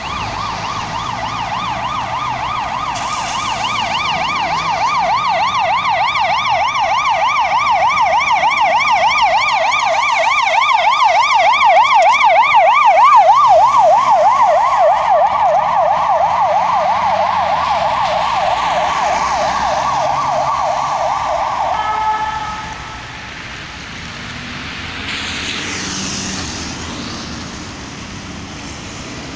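Ambulance siren in a fast rising-and-falling yelp, growing louder as it approaches, loudest about halfway through, then fading and cutting off suddenly about three quarters of the way in. Road traffic noise follows, with a car passing.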